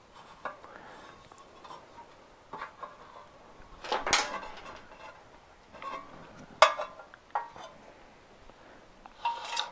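Scattered clinks and knocks of a recoil starter housing and its plastic pulley being handled while a new pull cord is knotted in. The knocks come about every second or two, and the loudest is about four seconds in.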